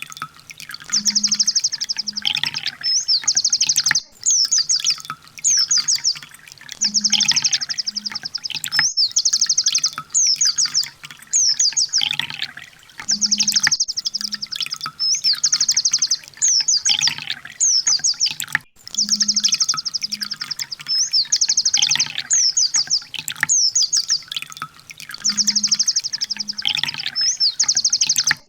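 Recorded sunbird song looped as a bird-tutoring track. A run of rapid, high trilled notes and a dense buzzy block is followed by a few falling sweeps, and the phrase repeats about every six seconds.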